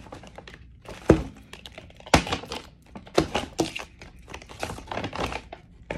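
Shopping bags and product packaging being handled: irregular rustling and crinkling with a few sharp thuds as items are set down, the loudest about a second in and again about two seconds in.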